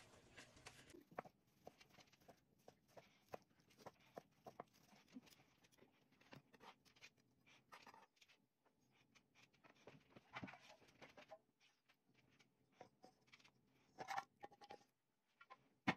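Faint, irregular clicks and scrapes of a plastic slotted spatula against a nonstick wok, with a louder run of scraping about fourteen seconds in as the sauce is pushed out of the pan, and a sharp click near the end.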